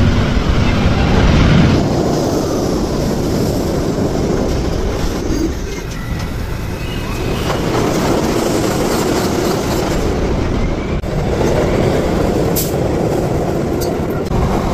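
New York City subway trains running through stations: a steady rumble of steel wheels on rails, with a few sharp clicks near the end.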